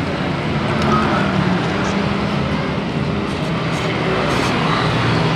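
Steady din of road traffic passing close by, engines humming with no single vehicle standing out.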